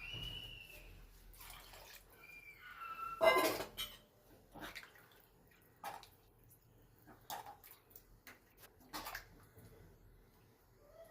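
Water being added to rajma in a pressure cooker: irregular splashes and clinks, about five of them, the loudest about three seconds in. A few brief high gliding tones sound in the first three seconds.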